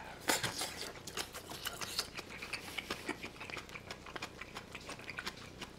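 Close-miked chewing of a mouthful of beef bulgogi and kimchi: irregular wet clicks and smacks, several a second.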